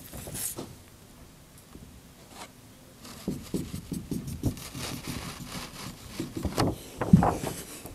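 Dry-erase marker drawing short dashes on a whiteboard: a quick run of short rubbing strokes, about four a second, starting about three seconds in. Before that there are only a few faint scratches.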